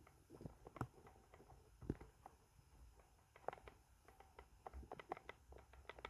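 Near silence broken by faint scattered clicks and ticks, more frequent in the second half.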